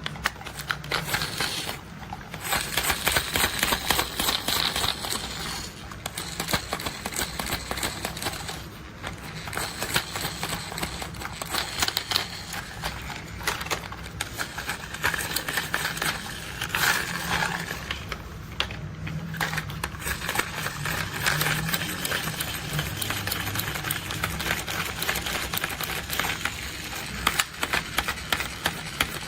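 Toy construction vehicles being played with: a dense, continuous run of plastic clicking and rattling, with a low steady hum underneath.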